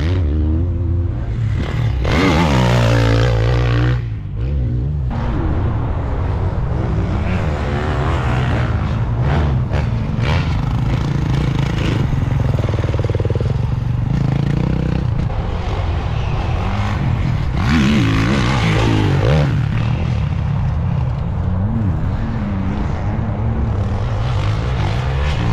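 Motocross bike engine being ridden hard, its revs rising and falling again and again with throttle and gear changes.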